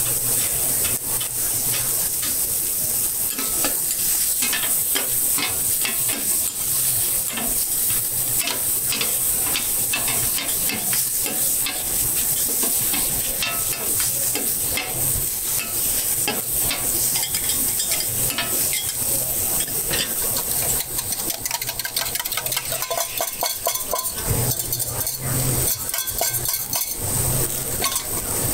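Scallion pancake frying in oil on a metal griddle, sizzling steadily, with a metal spatula scraping and clicking against the pan. A low hum joins about three-quarters of the way through.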